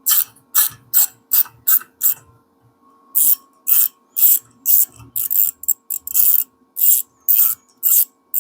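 Small hand ratchet clicking with quick back-and-forth strokes as it turns out a broken exhaust stud by a nut welded onto it, the stud coming out easily. A run of strokes, a pause of about a second, then another run.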